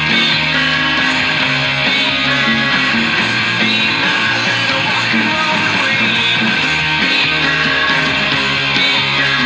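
Guitar strummed and picked steadily, playing an instrumental rock and roll passage with no singing.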